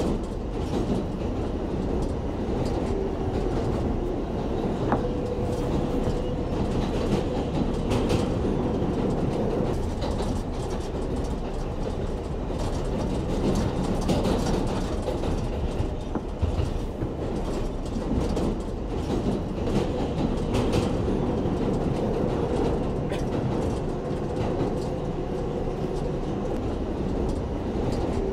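New York City Subway 7 train running along the track, heard from inside the car: a steady rumble of wheels on rail with a faint steady hum, broken by occasional sharp clicks from rail joints.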